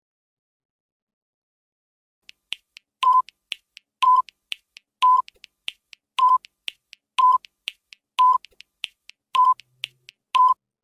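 Quiz countdown timer sound effect: quick clock-like ticks, about four a second, with a short beep on every second, eight beeps in all, starting about two seconds in.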